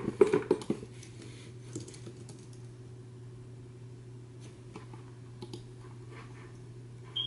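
Quiet room tone with a steady low hum, broken by a quick run of light clicks and taps in the first second and a few scattered faint ticks after. A short high beep sounds near the end.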